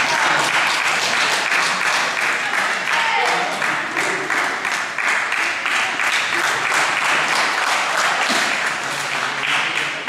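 Small crowd applauding at the end of a wrestling match: dense clapping that runs steadily throughout, with some voices mixed in.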